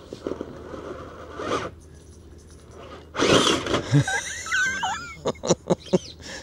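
Redcat Marksman RC rock crawler with a Fusion Pro motor scrabbling up a rock under throttle. About three seconds in there is a burst of scraping, then a whine that rises and falls, then a quick string of sharp knocks and clatters as the truck lurches and lands.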